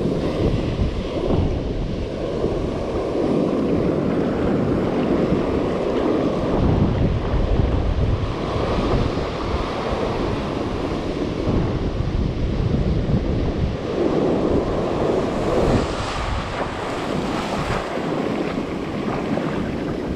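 Ocean surf washing onto a beach, with wind buffeting the microphone: a loud, continuous rush that swells and eases every few seconds.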